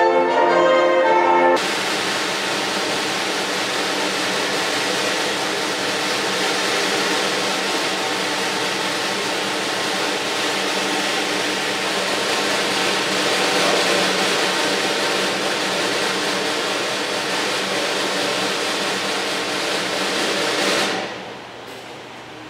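Live music with brass and orchestral instruments. From about a second and a half in, a dense steady noise covers it, with the music faint underneath. Near the end the sound drops off suddenly to a quiet hiss.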